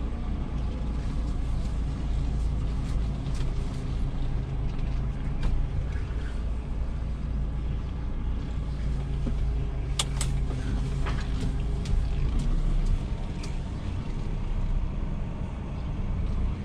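DAF truck's diesel engine running at low speed, a steady low drone heard from inside the cab as the truck maneuvers slowly. A few sharp clicks come about ten seconds in.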